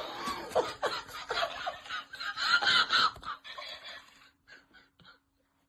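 Laughing or chuckling for about three seconds, then fading to quiet.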